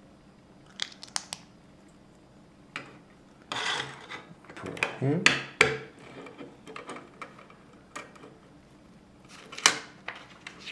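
LEGO plastic pieces clicking and rattling as they are handled and pressed together: a few quick clicks about a second in, a busier stretch of rubbing and sharp clicks around four to six seconds, and one sharp click near the end.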